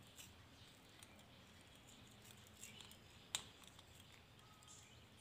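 Faint small clicks and scrapes of a kitchen knife cutting round the stem of a raw tomato, with one sharper click about three and a half seconds in.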